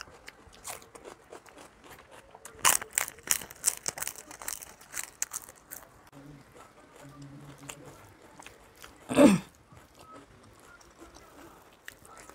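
Crisp fried papad (papadum) being bitten and chewed: a quick run of sharp crunching cracks for a few seconds, then softer chewing. About nine seconds in there is one short, loud mouth noise.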